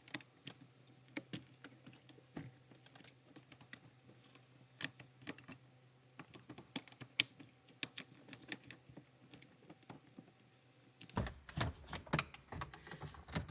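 Irregular light clicks and taps of hands working the Accord's shifter assembly and its plastic clips loose in the console, growing into a denser run of knocks and rattles near the end.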